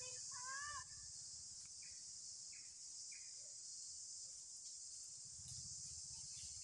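Steady high-pitched drone of insects in the forest, with one short wavering chirp-like call about half a second in.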